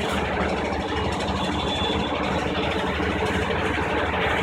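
John Deere 5050 D tractor's three-cylinder diesel engine idling steadily.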